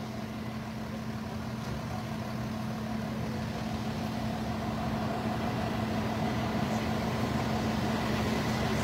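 Steady hum of an idling vehicle engine, growing slowly louder.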